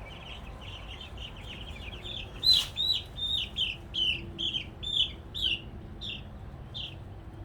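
Cornish cross broiler chicks, about twelve days old, peeping: a run of short high peeps, about two a second, loudest in the middle and thinning out near the end.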